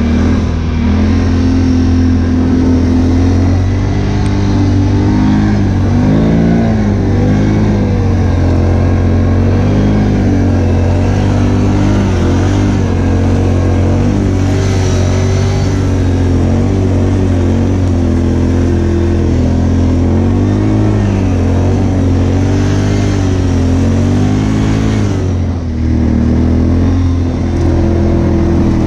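Can-Am Outlander 570 ATV on Apache 360 tracks, its Rotax V-twin engine running under way with revs rising and falling again and again, over a steady low hum. The sound dips briefly near the end.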